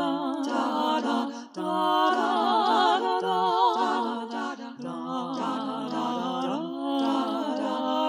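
Wordless a cappella vocal harmony: several layered voices hold chords with vibrato over a low sung bass line that changes note, with a brief break about a second and a half in.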